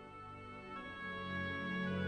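Soft background music with sustained held notes, swelling gradually in loudness.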